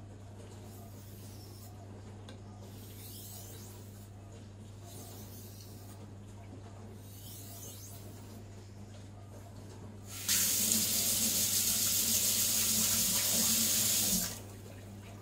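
A few faint, light strokes of a chef's knife edge across a wet 2000-grit Naniwa Aotoshi whetstone, gentle passes to take off the burr. About ten seconds in, a kitchen tap runs loud into a stainless steel sink for about four seconds, then cuts off.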